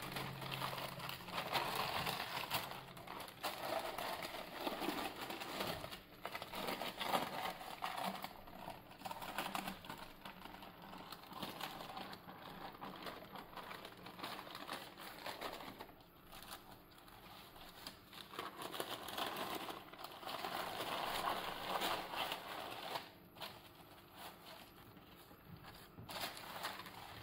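Baking parchment paper rustling and crinkling in uneven spurts as it is peeled off a baked sponge sheet and the sponge is rolled up in it.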